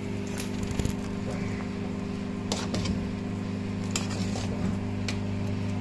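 A steel spoon stirring thick curry in an aluminium pressure cooker, with short scrapes and clicks of metal against the pot, over a steady low hum.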